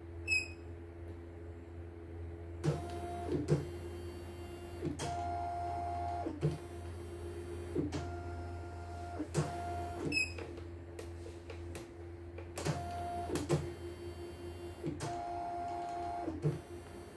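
CNY E900 embroidery machine's embroidery unit driving its hoop carriage in a series of short stepper-motor moves, a whirring whine with a click at each start and stop, beginning about 2.5 s in. A touch-screen beep sounds at the start and again about 10 s in.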